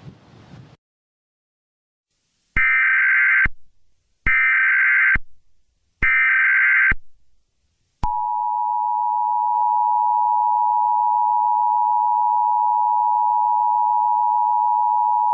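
Emergency Alert System tones: three short bursts of screechy digital data tones about a second apart (the SAME header), then, about halfway through, the steady two-tone EAS attention signal. A brief hiss of noise at the very start cuts off within the first second.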